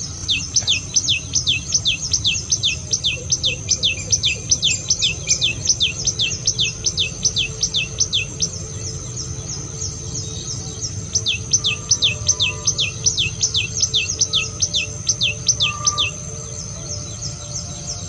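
Common tailorbird singing: a rapid, repeated series of falling notes, about four a second, in two bouts with a pause of a couple of seconds between them. A steady high insect drone runs underneath.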